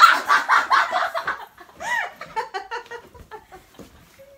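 Girls laughing, loudest in the first second and a half, with a high squeal that rises and falls about two seconds in, then quieter giggles.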